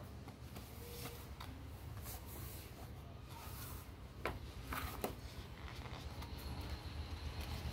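Thin paper rustling and crinkling as it is folded and creased by hand, with two sharper crackles a little past the middle, over a low steady hum.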